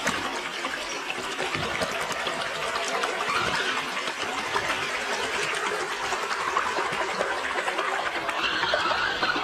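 Creek water pouring and splashing over a small waterfall, with the whine of an RC crawler's electric motor rising and falling as it climbs through the water, louder near the end.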